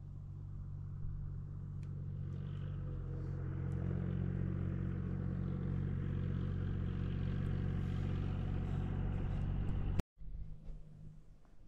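A motor vehicle's engine running with a steady low hum, growing louder over the first few seconds as it draws nearer, then cut off abruptly about ten seconds in.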